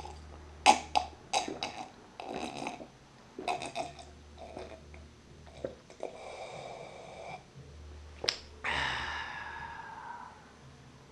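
A man gulping a drink from a mug in a run of short, sharp swallows, then letting out a long breathy sound after the drink, a little under nine seconds in, that fades over about two seconds.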